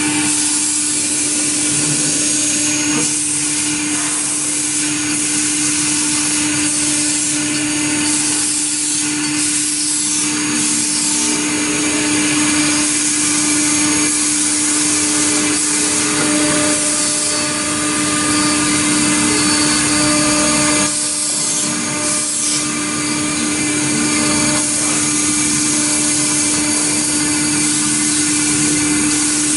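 CNC router spindle running steadily with a strong hum, its end mill cutting aluminum with a continuous harsh hiss.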